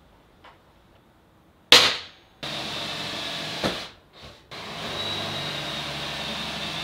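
A handheld electric drill with a step bit drilling 18-gauge sheet steel: one sharp knock, then the motor runs steadily with a faint high whine, stops briefly about four seconds in, and runs again.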